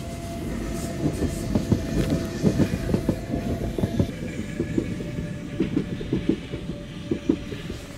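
Red NStCM metre-gauge electric train passing close, its wheels clattering over the rails in an uneven string of sharp clicks over a low rumble, with a steady electric whine.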